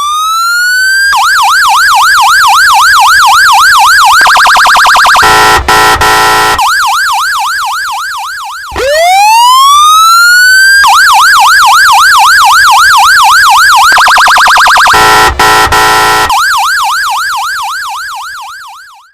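Electronic police siren going through its cycle twice: it winds up in a rising sweep, switches to a quick yelp about three times a second, speeds into a rapid warble, gives a short steady blare with a couple of clicks, then returns to the yelp. It cuts off suddenly at the end.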